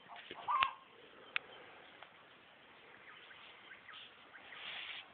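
A chicken clucking, with its loudest squawk about half a second in alongside a sharp knock. A single sharp click follows, then faint chirps.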